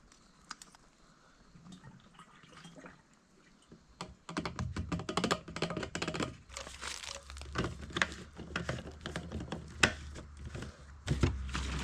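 Clicks, knocks and crinkling of a plastic gas can and a bottle of 2-cycle oil being handled while chainsaw fuel is mixed. A low steady hum comes in about four seconds in and grows louder near the end.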